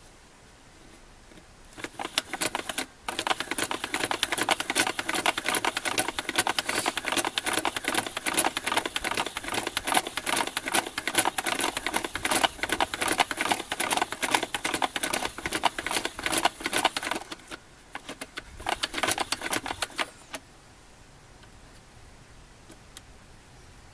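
Rapid plastic clatter of a Nintendo toy horse-racing board as the tray is worked by hand and the small plastic horses jitter along the track, a fast run of ticks. It goes on for a long stretch, pauses briefly, comes back in a shorter burst, then stops.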